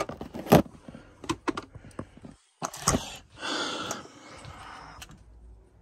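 Scattered clicks and knocks with a short rustle about three and a half seconds in, from things being handled on a desk.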